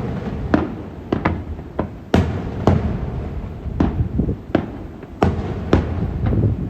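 Aerial firework shells bursting over a lake: a rapid series of about a dozen sharp bangs, roughly two a second, over a continuous low rumble.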